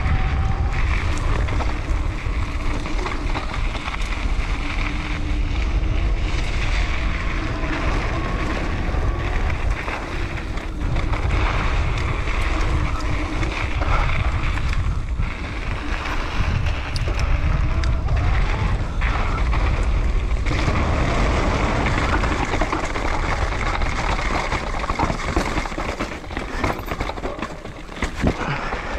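Wind rushing over an action camera's microphone on a mountain bike descending fast on a dirt trail, with the tyres rolling over dirt and scattered knocks and rattles from the bike on bumps. It eases off slightly near the end.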